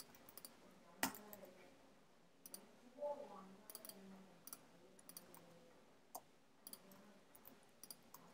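Faint computer keyboard typing and clicking: scattered, irregular short clicks, with a louder click about a second in.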